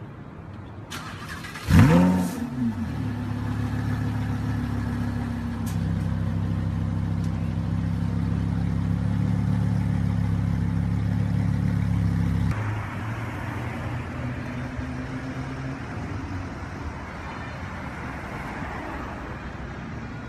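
Lamborghini Huracán's V10 engine starting with a sharp rev flare, its pitch rising and then falling, about two seconds in, then idling steadily at raised revs. About twelve seconds in the idle drops abruptly to a lower, quieter speed.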